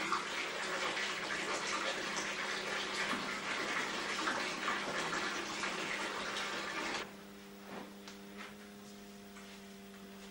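Water running into a bathtub as it fills, a steady rush that cuts off suddenly about seven seconds in. A quiet steady hum is left after it.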